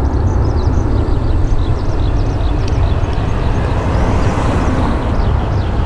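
Boeing 737-800's twin CFM56-7B turbofan engines at climb power, a loud steady rumbling roar from the departing jet.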